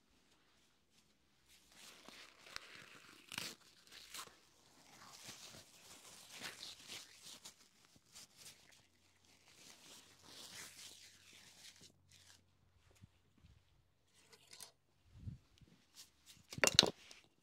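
Rustling and crackling of hair being worked through by hand during styling, in uneven bursts. Two knocks come near the end, the second the loudest.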